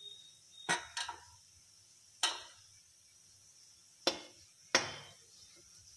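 A steel ladle knocking against a metal kadhai as gulab jamun are turned in frying oil: five sharp clinks that ring out briefly, two quick ones about a second in, one a little after two seconds, and two more near the end, over a faint steady hiss.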